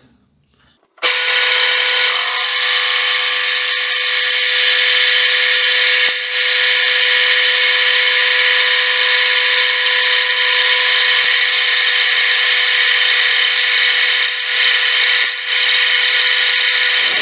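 Metal lathe spinning a large rusty steel disc while the cutting tool takes a facing pass across it, throwing chips: a loud, steady machining sound with a constant whine. It starts abruptly about a second in.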